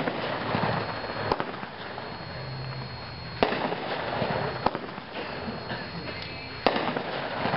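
A 500 gram consumer fireworks cake firing. Sharp bangs come a second or two apart, with a hissing crackle between them.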